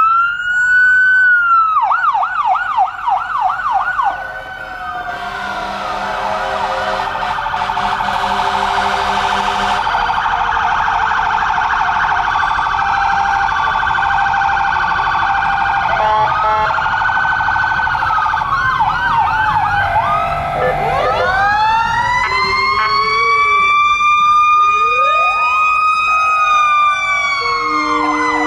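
Several emergency-vehicle electronic sirens sounding together: slow rising-and-falling wails overlap fast, repeating yelps. A steady horn tone is held for about five seconds, starting about five seconds in.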